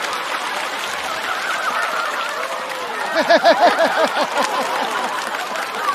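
Studio audience laughing, with one person's rhythmic 'ha-ha-ha' laugh rising above it about three seconds in.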